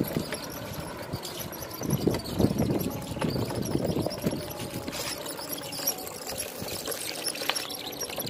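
Wheels of a homemade wooden toy truck rolling and scraping over concrete paving blocks as it is pulled along by a cord, an uneven rumble that is busiest in the middle.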